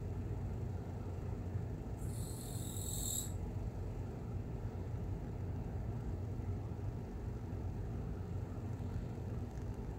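Steady low background hum, with a brief high hiss about two seconds in that lasts just over a second.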